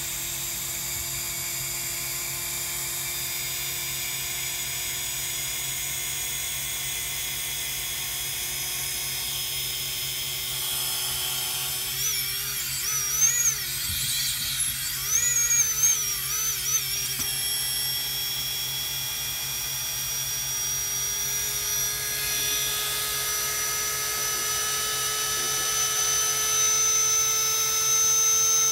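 Walkera F210 quadcopter's brushless motors whining steadily with no propellers fitted. They keep running with the transmitter switched off, because the failsafe does not cut them. The pitch slowly climbs, and wavers up and down for a few seconds midway.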